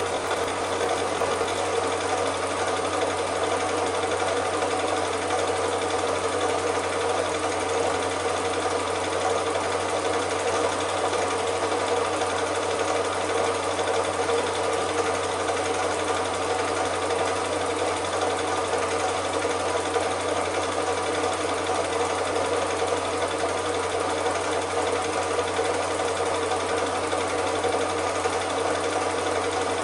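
Cine film projector running steadily, its mechanism whirring evenly throughout.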